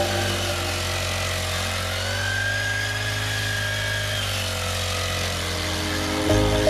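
Honda GX50 small four-stroke engine on a push weeder running steadily, its pitch rising a little about two seconds in and easing back down a couple of seconds later.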